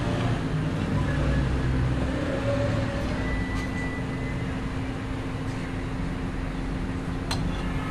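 Steady low mechanical rumble with a constant hum running underneath, with a sharp click about seven seconds in.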